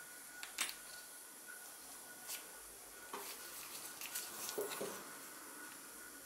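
Light clicks and small scrapes of a hand oiler's pump plunger, spring and cap being handled and fitted together with gloved hands, a handful of separate ticks with a small cluster past the middle.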